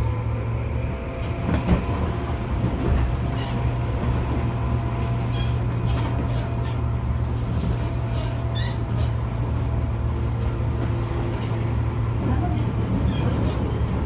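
Tobu 10000 series electric commuter train, a field-chopper-controlled car, running at speed, heard from inside the passenger car. A steady low rumble from the running gear carries thin steady tones, with a few sharp clicks over the rails.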